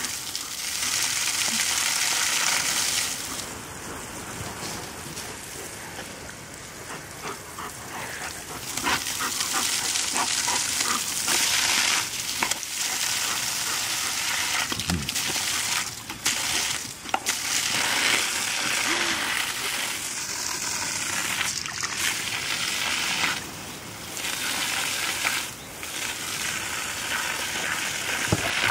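Jet of water from a garden hose spraying onto grass and a puddle: a steady hiss that swells and drops several times as the stream moves.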